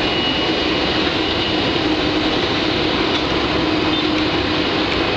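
Steady jet aircraft engine noise across an airport apron: a continuous loud rush with a steady low hum underneath that does not rise or fall.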